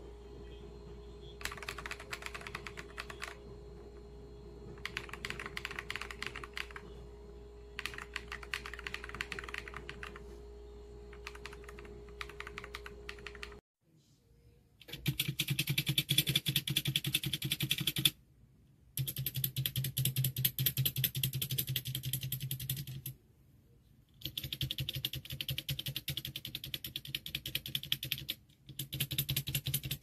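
Typing on a mechanical keyboard: fast runs of key clicks over a faint steady hum. After a short break about halfway, louder runs of rapid key presses start and stop several times.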